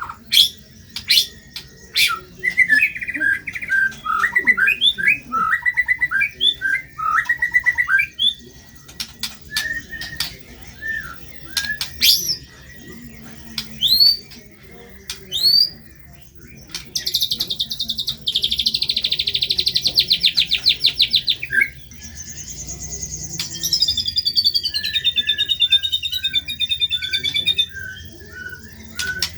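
White-rumped shama (murai batu) singing a loud, varied song of sharp whistles, quick upslurred notes and chips, full of harsh imitated phrases. About halfway in it gives a long, rapid, buzzy trill lasting some four seconds, and near the end a run of falling warbled notes.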